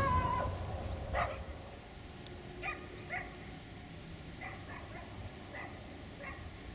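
A dog barking repeatedly, about eight short barks. The first two are the loudest and the later ones fainter, under a low rumble that fades out over the first second or two.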